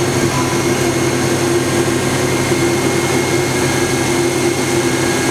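Steady whir and hum from the open electrical cabinet of a Hitachi Seiki HT-20SIII CNC turning center: cooling fans and the spindle drive running while the machine turns its spindle.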